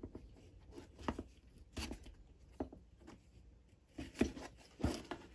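Scattered light knocks and taps, about half a dozen spread over several seconds, from handling things at a workbench.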